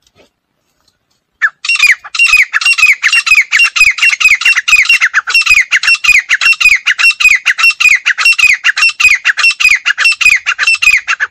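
Female grey francolin calling: a loud, fast series of short squawking notes, each falling in pitch, about four a second, starting about a second and a half in.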